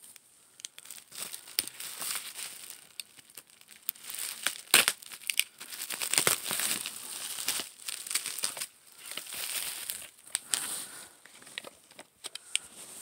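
Crinkly packaging being crumpled and torn open by hand: an irregular run of crackles and rustles with a few sharper snaps, starting about a second in.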